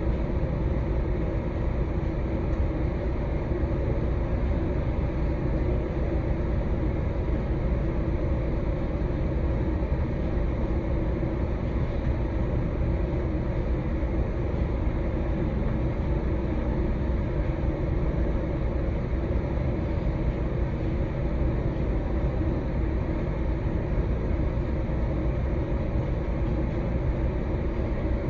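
Steady sleep-aid white-noise track: a deep, even hiss, heaviest in the low end, that never changes.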